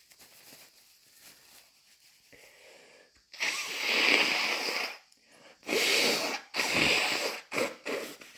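A person blowing a runny nose wetly: faint breathing, then one long snotty blow a little over three seconds in, followed by several shorter blows, the last few quick ones.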